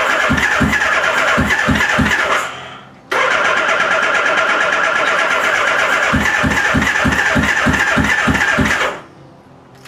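Suzuki GS550 inline-four cranking on its electric starter without catching: a starter whir with a chug about three times a second, in two bursts, the first stopping about two and a half seconds in and the second running from about three to about nine seconds in. Cylinders one to three are not firing and four only a little.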